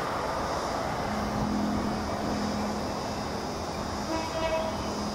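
Queensland Rail 2900 class diesel locomotive 2904 running, a steady engine drone over a broad rumble, with a short horn toot about four seconds in.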